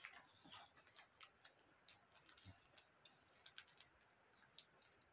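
Faint scattered clicks and crinkles of a small plastic sauce sachet being handled and bitten at to tear it open, with one soft knock about halfway through. The packet will not tear.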